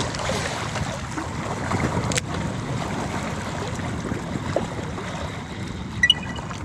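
Steady wind noise on the microphone with water lapping at the shore, a single sharp click about two seconds in and a brief high chirp near the end.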